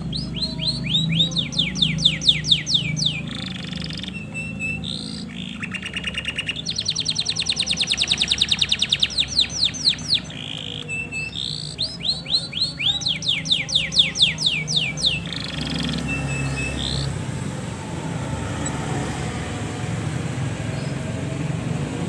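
Male canary singing: phrases of repeated high down-sweeping notes, with a fast rolling trill in the middle. The song stops about fifteen seconds in, leaving a steady low hum.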